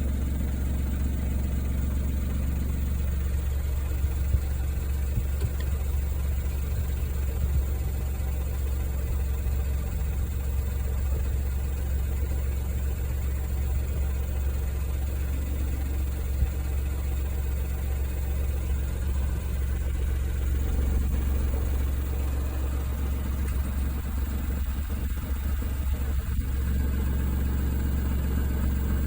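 Suzuki Wagon R MH22S's K6A three-cylinder engine idling steadily, with a few brief sharp clicks now and then. The exhaust rattles as it shakes even with new muffler hanger rubbers fitted.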